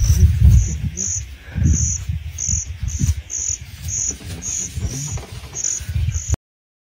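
An insect chirping in short high pulses about twice a second, over an irregular low rumble that is the loudest sound. All sound cuts off suddenly near the end.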